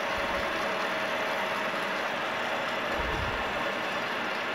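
Startrite H250A horizontal metal-cutting bandsaw running steadily just after being switched on: an even machine noise with a steady tone.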